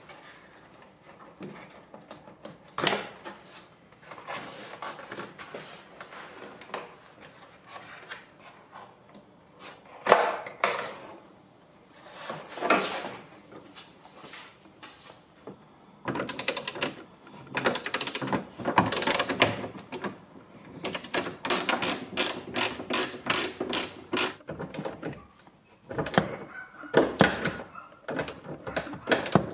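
Hand tools and parts working on the bare inner door shell of an Audi S3 8L: scattered knocks and rattles, then from about halfway dense runs of rapid clicking.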